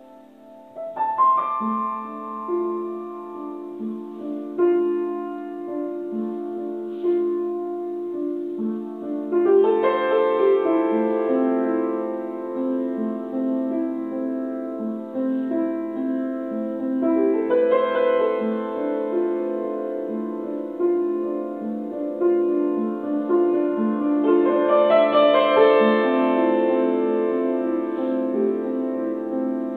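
Upright piano played solo: a slow piece of held notes and chords that opens softly and swells into louder, fuller passages three times.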